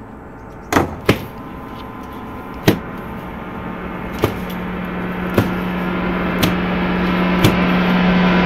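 Seven sharp strikes of a beating at uneven intervals, the first three loudest, over a noisy drone that swells steadily louder, with a low steady hum joining about halfway through.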